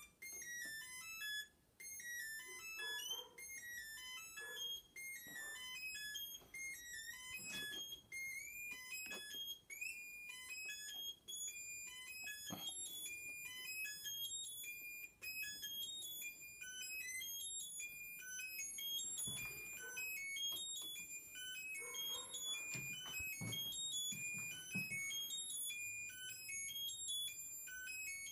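Homemade 16-channel analog step sequencer playing a fast repeating 8-step pattern of short electronic beeps at stepped pitches. The pitches of the steps shift as its knobs are turned, with occasional handling knocks.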